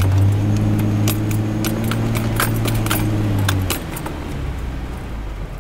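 Heard from inside the cab, an off-road vehicle's engine drones steadily as it drives slowly through a shallow creek bed, with quick light clinks and rattles scattered through it. The engine eases off a little past halfway.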